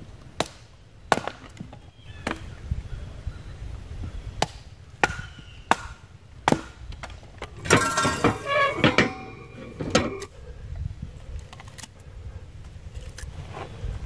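Kindling being split with a small axe: a series of sharp wooden chops, one every second or so. About eight seconds in, a metal tool scrapes and clanks against a steel campfire ring with a brief ringing, followed by a few light knocks.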